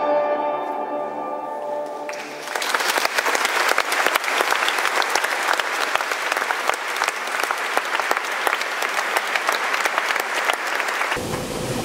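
A grand piano's last chord rings and fades, then an audience breaks into applause about two seconds in, many hands clapping steadily until it cuts off abruptly near the end.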